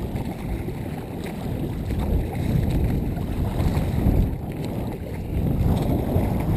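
Wind rumbling on the microphone mixed with choppy river waves slapping and splashing against a kayak's plastic hull, muffled by a GoPro Hero2's waterproof housing and swelling louder in uneven surges.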